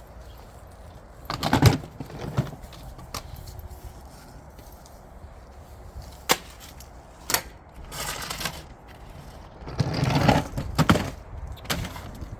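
Irregular knocks and clatter with short scraping rustles, from small plastic toy vacuum cleaners being handled and set down.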